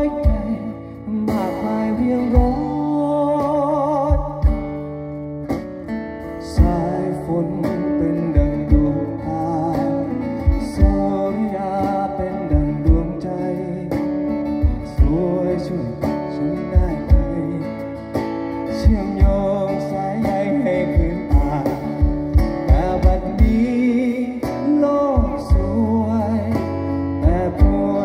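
Live acoustic set: a male voice singing with vibrato over two acoustic guitars, strummed and picked, played through PA speakers. Regular low thumps mark the beat.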